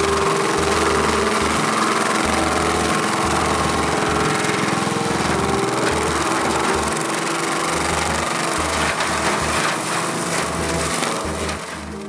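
Skid steer engine running under load while a DFM Turbo Mulcher's direct-drive toothed drum spins and grinds brush and saplings into chips, a steady dense machine noise. It eases off somewhat over the last couple of seconds.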